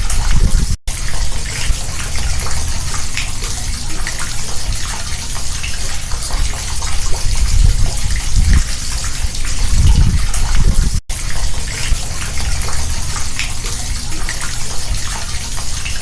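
Rainwater gushing steadily down through a street storm-drain grate into the sewer, a continuous splashing flow with heavier low surges now and then. The sound cuts out for an instant twice, about a second in and about eleven seconds in.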